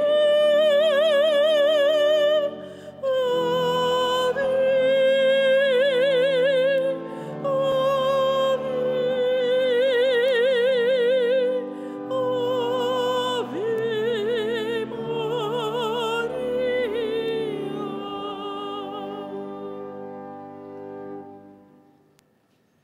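A woman singing solo in a classical, operatic style, with wide vibrato on long held high notes over sustained accompanying chords. The song ends and its sound dies away about twenty seconds in.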